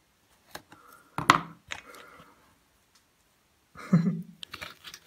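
A few scattered clicks and knocks of metal parts and tools being handled on a petrol trimmer engine under repair. There is one sharper knock about a second in and a short dull thump near the end.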